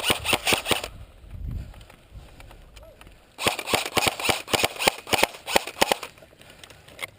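Airsoft guns firing in quick strings of sharp plastic-BB shots: a string that stops about a second in, then after a pause a longer one from about three and a half to six seconds in.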